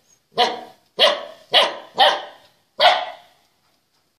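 Puppy barking: five short, sharp barks about half a second apart, over roughly three seconds.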